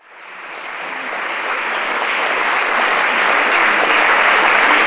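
Audience applauding, fading in from silence at the start and growing steadily louder.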